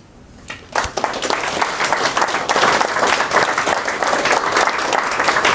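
Audience applauding, many hands clapping. The applause starts under a second in, after a brief quiet, and keeps going.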